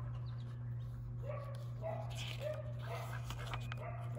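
A pet animal making a handful of short, soft calls, each dipping slightly in pitch, over a steady low hum.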